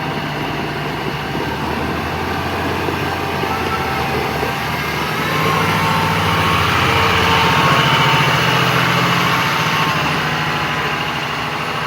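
John Deere 7215R tractor's 6.8-litre six-cylinder diesel engine running steadily, growing louder for a few seconds midway and then easing back.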